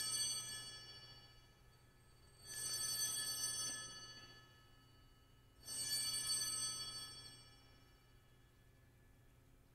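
Altar bells (Sanctus bells) rung three times at the elevation of the chalice: a ring already sounding, then two more about three seconds apart, each a cluster of high chiming tones fading over about two seconds.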